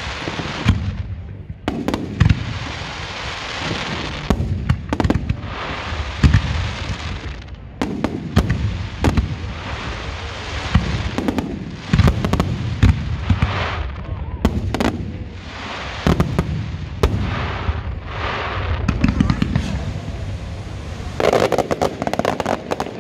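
Fireworks display: aerial shells bursting with repeated bangs, each followed by a hiss of crackling stars. Near the end comes a quick string of sharp cracks.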